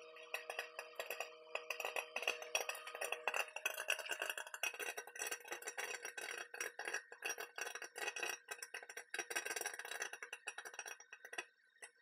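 Dry popcorn kernels popping in a silicone popcorn popper bucket inside a running microwave, in a fast, dense crackle of pops over the oven's steady hum. The footage is sped up, so the pops come quicker than in real time. The sound cuts off just before the end.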